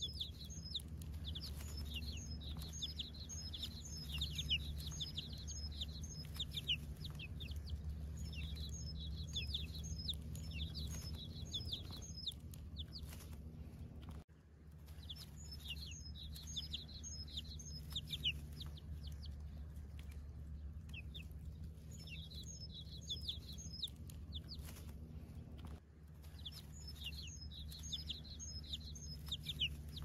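A group of chicks peeping: clusters of rapid, high, short cheeps over a steady low hum. The sound cuts out briefly about 14 seconds in and again near 26 seconds, then the peeping resumes.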